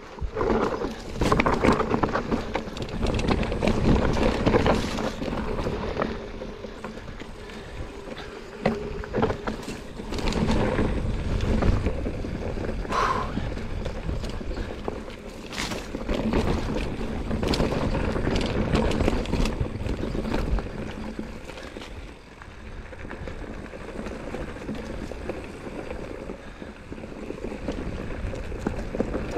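Mountain bike riding down a trail: tyres rolling over dirt and stones, with frequent rattling knocks from the bike, and wind rushing over the microphone.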